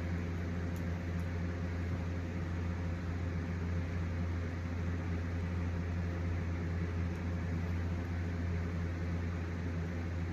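Steady low mechanical hum with an even hiss underneath, unchanging throughout.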